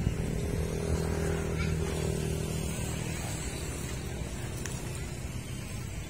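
A motor engine running steadily, fading away over the second half.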